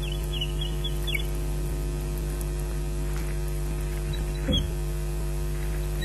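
Steady electrical mains hum from the osprey nest camera's audio, with a few short, faint high bird chirps in the first second and again about four and a half seconds in, where a soft knock also sounds.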